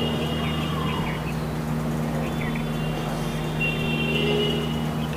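A steady low mechanical hum with a faint background noise, broken by a few short, faint high chirps.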